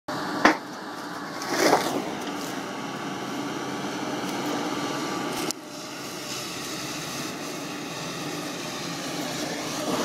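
JCB JS200 LC hydraulic excavator working a log grapple, its engine and hydraulics running with a steady hum. There is a sharp knock about half a second in and a brief louder rush just before two seconds.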